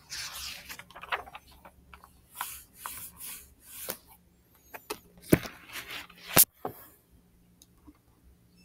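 Irregular rubbing and scraping noises in short bursts, with two loud sharp clicks about a second apart past the middle, then quiet.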